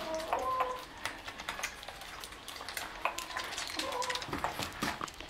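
Shih Tzu puppies suckling at their mother: a rapid, irregular patter of wet clicks and smacks, with a few brief squeaks near the start and again around three and four seconds in.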